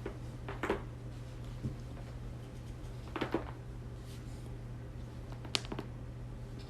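Joints cracking under a chiropractic adjustment: three short crackling pops, under a second, about three seconds and about five and a half seconds in, the last the sharpest. A steady low hum runs underneath.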